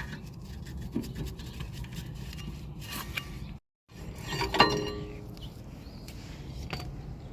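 Hand tools working on metal brake parts: scraping and rubbing with light clinks, then a louder stretch with a short ringing squeal about four and a half seconds in. The sound drops out completely for a moment just after three and a half seconds.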